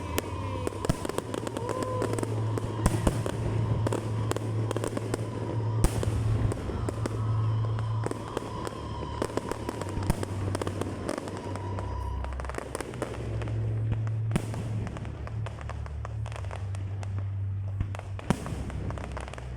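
Aerial fireworks going off in a rapid, irregular series of bangs and crackles, with no let-up.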